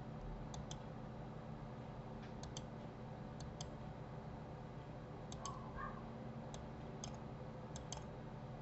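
Faint computer mouse clicks, about seven, several coming in quick pairs, spaced irregularly over a low steady hum.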